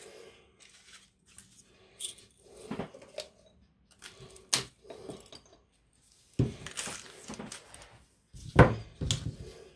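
Hands handling loose wooden matches and small containers on a hardboard sheet: scattered light clicks, rattles and taps, with a sharp click about four and a half seconds in and louder thumps about six and a half and eight and a half seconds in.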